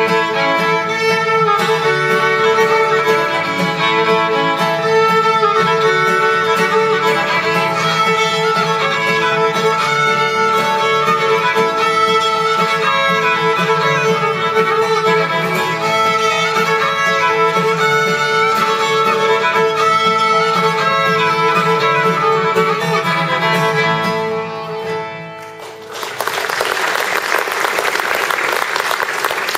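A fiddle playing a tune with acoustic guitar accompaniment; the tune ends about 25 seconds in, and audience applause follows.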